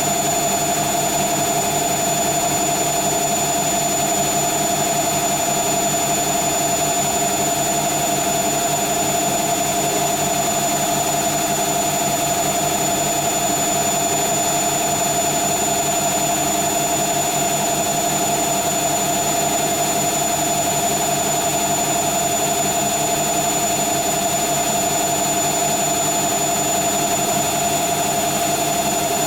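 Hoover Nextra HNL71463D washing machine in its final 1400 rpm spin, running at a steady speed: a constant whine over a steady hum, with no change in pitch.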